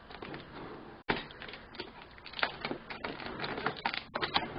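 Cardboard packaging being handled and opened: scattered clicks, scrapes and rustles as the sides of a microphone box are taken off, with a sharp knock about a second in.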